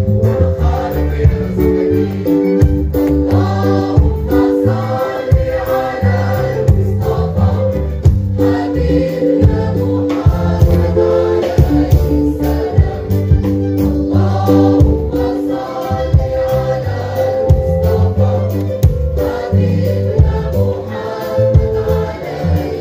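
A choir singing with a small orchestra of violins, cello and keyboard, with drums keeping a steady beat, performed live on stage.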